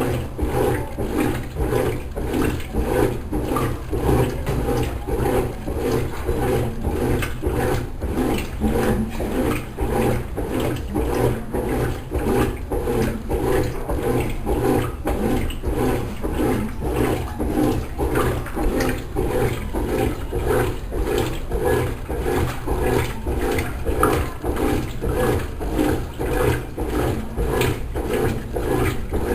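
Consul Maré Super 10 kg top-loading washing machine in its wash stage: the motor drives the agitator back and forth in a regular rhythm, with water and clothes sloshing in the tub.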